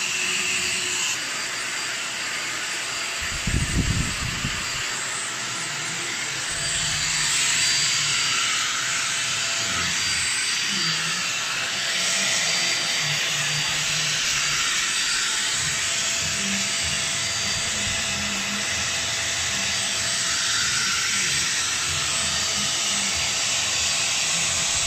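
Deerma DX700 stick vacuum cleaner running with a steady airy whine while its floor nozzle is pushed across the floor and under furniture. A brief low thump comes about four seconds in.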